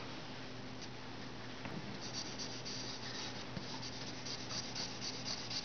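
Graphite pencil scratching on paper in quick repeated shading strokes, several a second, picking up about two seconds in.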